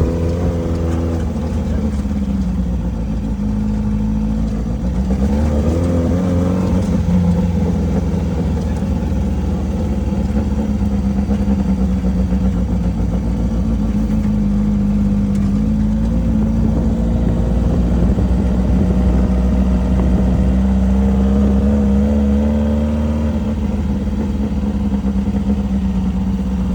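Off-road race vehicle engine running steadily under throttle while driving a desert course lap, with a heavy low rumble underneath. Its pitch briefly dips and climbs again about five to seven seconds in, then holds steady.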